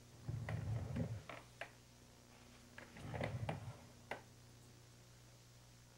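Steady low hum and faint hiss from a blank VHS tape playing back. It is broken twice by short bursts of crackling clicks and low rumble, about a second long each, once shortly after the start and once about three seconds in, with a single click after the second burst.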